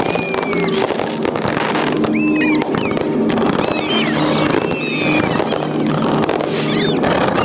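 Large aerial fireworks display: dense bangs and crackling bursts, with whistling shells whose pitch arcs up and down several times.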